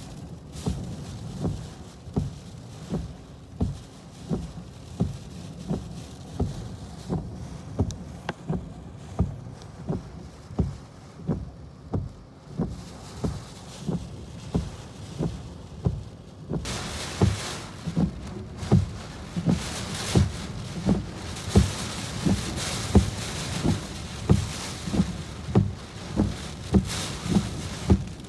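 Heavy rain and wind on a parked car in a storm, with a steady, even thumping about three times every two seconds. About two-thirds of the way in, the rain and wind noise surges much louder.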